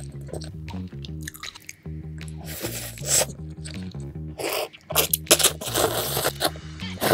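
Background music with a stepping low melody, overlaid with loud slurping and chewing of spicy Buldak instant ramen noodles in several noisy bursts, the longest in the second half.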